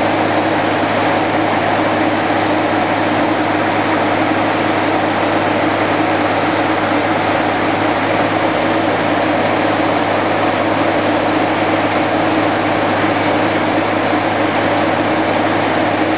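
Diesel engines of vibroseis seismic trucks running, a loud, steady drone that holds one pitch throughout.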